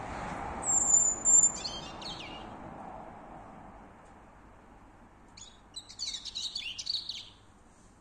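A small songbird singing at night. About a second in comes a thin, high whistle, followed at once by a short scratchy twitter; a longer scratchy, crackling phrase follows around six to seven seconds in.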